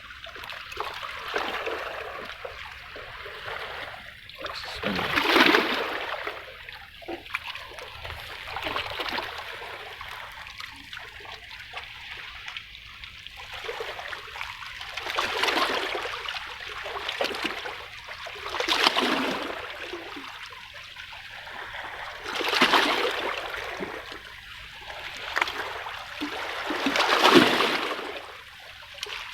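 Seawater washing and splashing against breakwater rocks, a steady trickling broken by louder surges every few seconds as waves come in.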